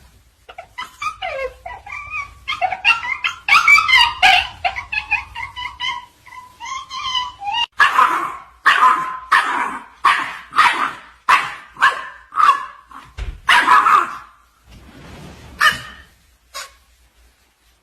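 A dog yelping and barking: a quick jumble of short high calls, then a steady string of barks at about two a second, with a couple more barks near the end.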